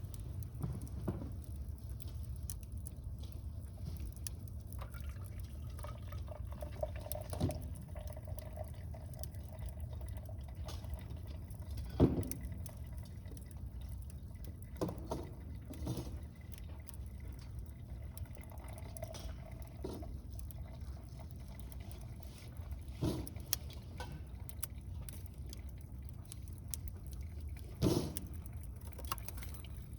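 Water heating in a kettle over a wood fire: a steady low bubbling rumble, with a faint wavering hiss twice and a few sharp pops and crackles, the loudest about twelve seconds in and near the end.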